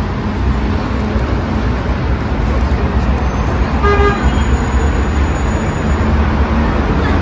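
Steady rumbling background noise with one short toot about four seconds in.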